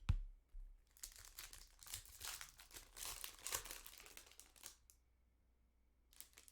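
A sharp thump, then a foil trading-card pack wrapper crinkling and being torn open for about four seconds, with one more short crinkle near the end.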